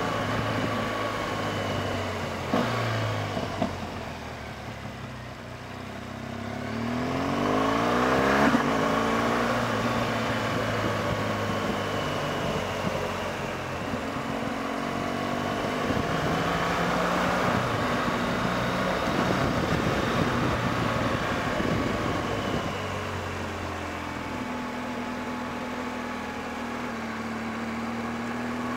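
BMW R1200GS Adventure's boxer-twin engine running under way, its revs rising and falling through the ride, with a strong rise a few seconds in. Two short knocks come near the start.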